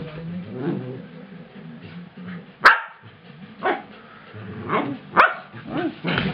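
Corgis play-fighting: low growling throughout, broken by several short, sharp barks, the loudest about two and a half seconds in.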